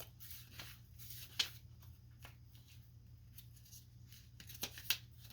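Pages of a paper guidebook being turned, soft rustles and flicks, with a sharper flick about a second and a half in and a couple more near the end.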